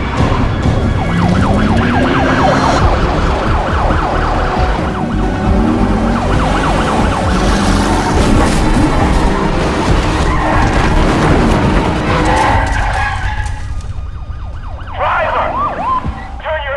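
Police car sirens wailing and yelping over the rumble of car engines in a chase. The sirens drop away in the last few seconds.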